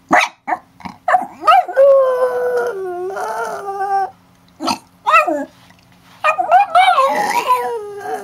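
Dog howling: a few short yips, then a long howl that slides down in pitch; more short yips about five seconds in, then a second long, falling howl near the end.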